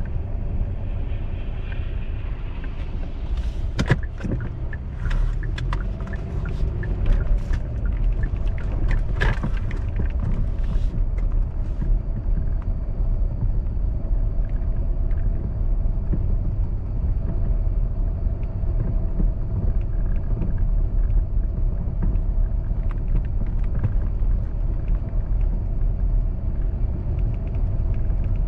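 Car driving slowly over a slushy, snow-covered road, heard from inside the car: a steady low rumble of engine and tyre noise, with a flurry of sharp clicks and crackles a few seconds in that stops after several seconds.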